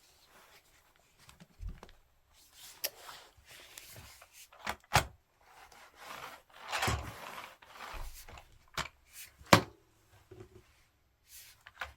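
Plastic parts of a canister vacuum cleaner being handled and fitted together: rubbing and scraping, with a longer scrape about halfway through and several sharp clicks and knocks, the loudest about three quarters of the way in.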